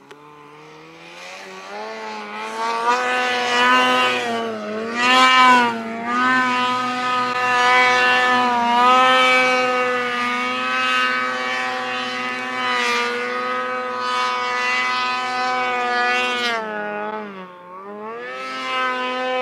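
Snowmobile engine at high revs as the sled climbs a steep chute. The pitch rises over the first two seconds and then holds high and steady, dipping briefly about five seconds in and again near the end before picking up.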